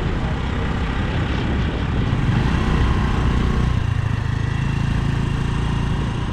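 Motor scooter's small engine running while it is ridden, with rushing noise from the ride; a steady engine hum settles in about halfway through.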